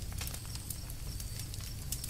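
Campfire crackling: irregular sharp snaps and pops, several a second, over a low steady rumble.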